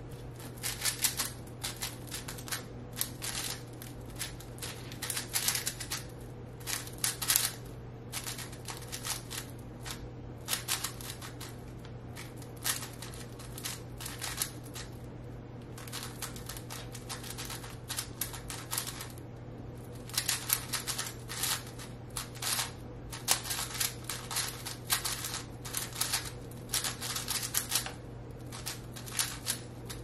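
A 5x5 speed cube being turned fast by hand: rapid plastic clicking of its layers, in runs of turns broken by short pauses.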